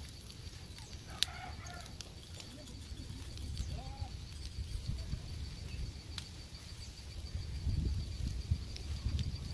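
Wood campfire crackling with a few sharp pops over a low steady rumble, while a bird calls briefly a couple of times.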